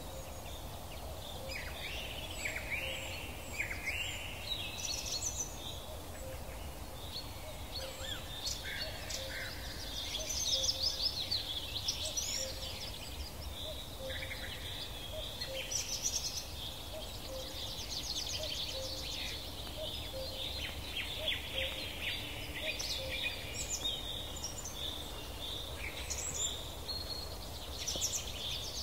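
Several songbirds singing at once in woodland, overlapping chirps, quick trills and rapid note runs that go on throughout, busiest in the middle, over a low steady rumble.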